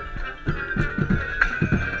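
Marching band playing, with marching bass drums loudest: a quick run of pitched low drum strikes, several a second, over a sustained higher band chord.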